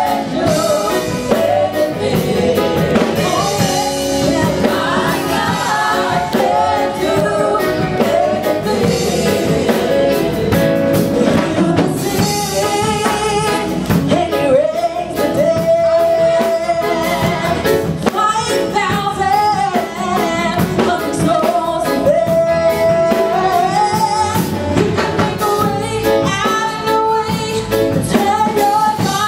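Gospel band playing with singers over a drum kit and other instruments, the voices holding long notes in places.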